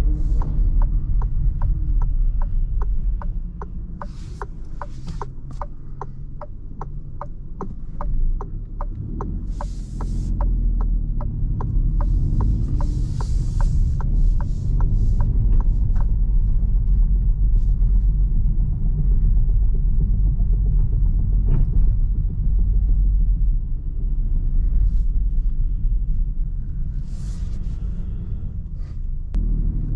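Cabin rumble of the Citroen C4's 1.2 PureTech three-cylinder petrol engine and tyres on a city drive. For roughly the first half, a regular tick sounds about three times a second, typical of the turn-signal indicator, and then stops.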